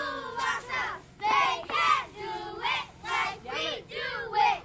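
Young girls of a cheer squad chanting a cheer together in short, shouted phrases.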